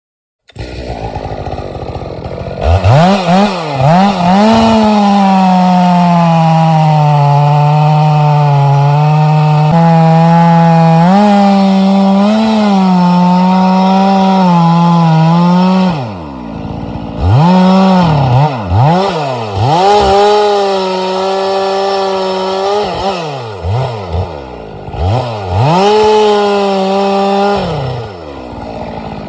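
Two-stroke chainsaw felling a large tree. The saw starts at idle and is revved a few times, then runs a long cut at full throttle with its pitch sagging under load. About halfway through it drops back to idle, is blipped several times, and makes two shorter cuts before settling to idle near the end.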